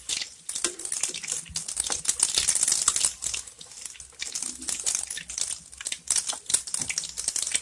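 Pork-and-grated-potato balls deep-frying in a wok of hot oil, the oil sizzling with a dense, irregular crackle and sputter.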